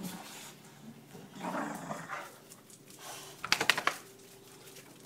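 Boxer dogs play-growling over a rope toy, in low rough spells, with a quick run of sharp clicks about three and a half seconds in.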